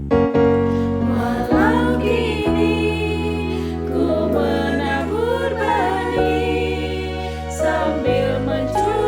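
Vocal group singing a slow gospel song in harmony over held keyboard chords and bass, the chords changing every second or two.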